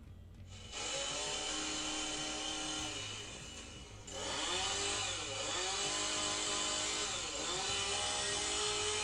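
Chainsaw engine running and revving, its pitch dipping and climbing back several times. It starts about a second in, eases off around three seconds, and comes back louder about four seconds in.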